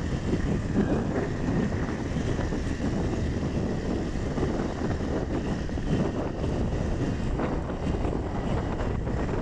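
Steady wind rumble on the microphone over road noise from a moving vehicle, even throughout with no distinct events.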